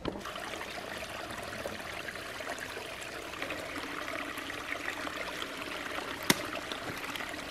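Small mountain stream trickling and splashing over mossy rocks, a steady even rush of water, with one sharp click near the end.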